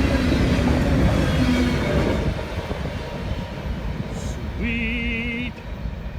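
CSX freight train passing: wheels rumbling and clattering on the rails, loud for about two seconds and then fading as it moves away. Near five seconds a brief wavering tone sounds for about a second.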